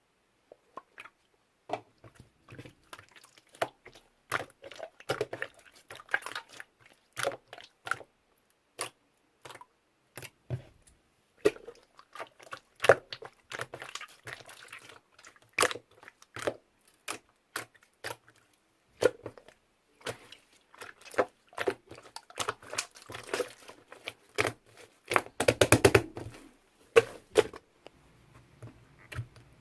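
Slime being squeezed and poked by hand, making irregular sticky clicks and pops. A quick run of them near the end is the loudest part.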